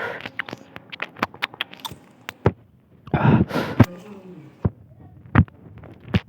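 Close-up eating sounds: wet chewing with many sharp lip-smacking clicks, and a louder rushing, breathy burst about three seconds in.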